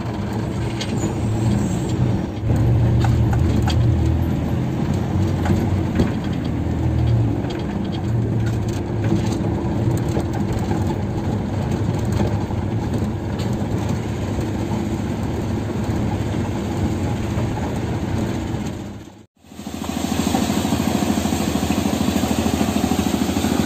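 Mitsubishi L300 pickup driving, heard from inside the cab: its engine runs steadily over cab and road noise. About 19 seconds in the sound breaks off abruptly and gives way to a different steady outdoor noise.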